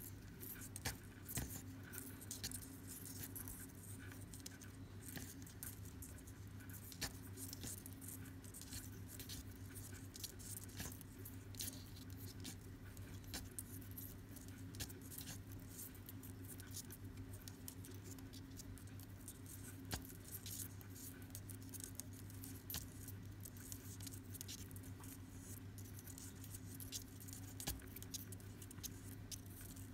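Faint rustling and small irregular clicks of macrame cord being handled and pulled into knots by hand, over a steady low electrical hum.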